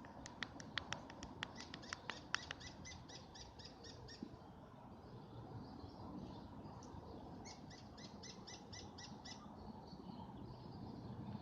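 A woodpecker calling a rapid series of short, high notes, about five or six a second, in two runs with a pause between; the first run opens with a few sharper, louder ticks. Faint.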